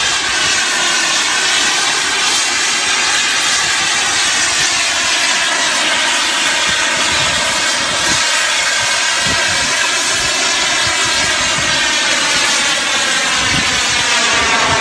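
Jet aircraft engine roaring loud and steady during a flying display, its tone drifting slowly up and down as the aircraft moves past.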